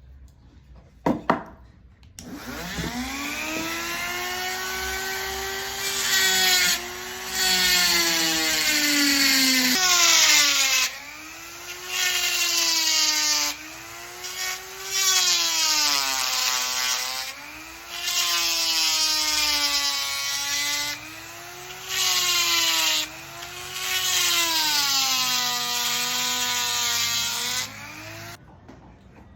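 Handheld electric power carving tool cutting into wood: the motor's whine sags and recovers over and over as the cutter is pressed in, with loud bursts of gritty cutting noise each time it bites. A click about a second in comes just before the tool starts up.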